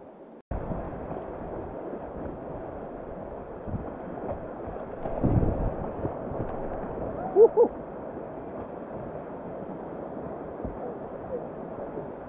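River whitewater rushing steadily, with wind buffeting the microphone. There is a louder low surge about five seconds in and two brief high yelps about halfway through.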